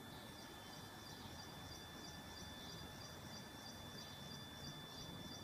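Quiet outdoor ambience with a rapid, regular series of high chirps, about four a second, starting just after the opening, over a faint steady high-pitched tone.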